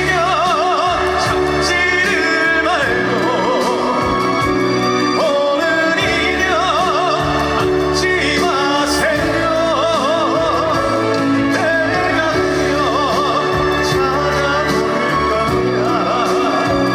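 Trot song performed live with a full band backing. A voice sings long held notes with a strong vibrato.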